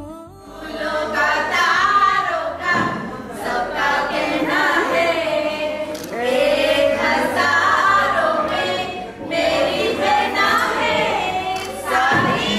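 A group of women singing a song together, one of them into a handheld microphone.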